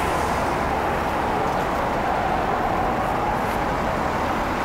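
Steady traffic noise at a busy city intersection: road vehicles running past, blending into an even, unbroken hum.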